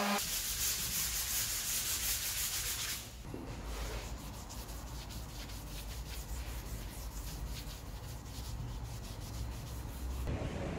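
Wooden table being rubbed by hand with a fibrous pad in quick scratchy back-and-forth strokes, brighter for the first few seconds and softer after. An electric orbital sander's motor hum cuts off right at the start.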